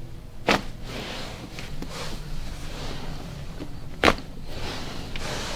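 Two sharp joint cracks from chiropractic adjustments, about three and a half seconds apart, with quieter handling sounds between them.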